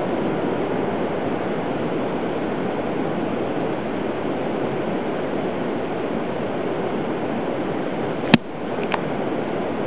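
Steady wash of surf breaking on the beach, with one sharp click about eight seconds in.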